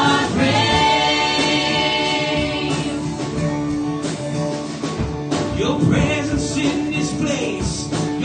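A church worship band playing contemporary worship music live, with several singers and a guitar.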